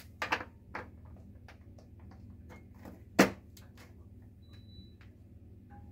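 Plug clattering and clicking into a wall socket as a fridge is plugged in. Two knocks come near the start, and a sharp click about three seconds in is loudest, over a steady low hum.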